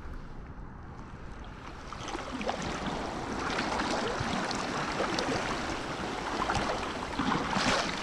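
Shallow seawater splashing and sloshing around a landing net, getting louder and busier from about two seconds in with many small spattering sounds. Low wind rumble on the microphone runs underneath, and there is a brighter splash near the end.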